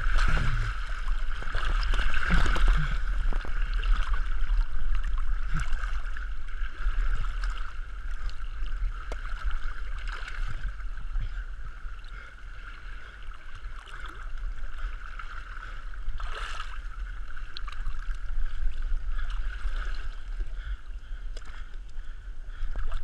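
Stream water rushing and gurgling around a camera held half in the water at the surface, with a steady low rumble; it swells and fades as the camera dips and rises.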